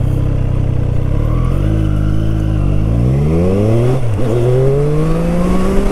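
Triumph Street Triple 765 RS's inline three-cylinder engine accelerating hard: the revs hold, then climb, drop briefly at a gearshift about four seconds in, and climb again.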